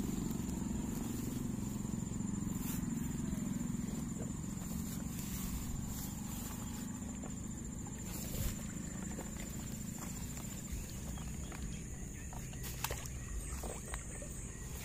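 A steady high-pitched insect trill over a low rumble of rustling grass and camera handling, with a few sharp clicks, the loudest about eight and a half seconds in and another near thirteen seconds.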